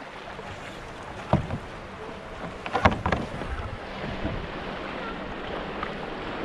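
A sea kayak being paddled on calm sea: paddle blades dipping and splashing, water lapping and wind rushing over the microphone. The two loudest moments are sharp splashes from the paddle, about a second and a half apart.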